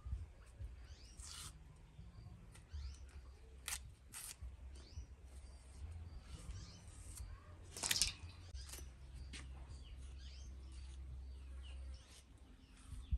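Small birds chirping again and again, with a few short sharp scrapes of a knife cutting the peel off green bananas, the loudest about eight seconds in. A low steady hum lies beneath.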